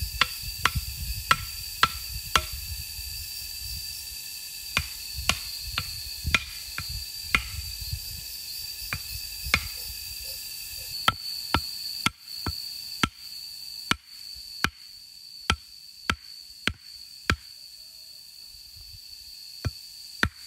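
Hatchet chopping green bamboo poles: sharp single strikes, about two a second, in short runs with brief pauses between.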